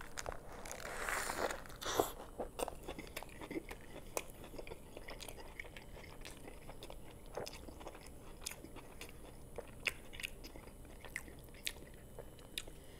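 A person bites into a homemade double-patty cheeseburger with lettuce, the loudest part in the first two seconds, then chews it with scattered soft crunches and mouth clicks.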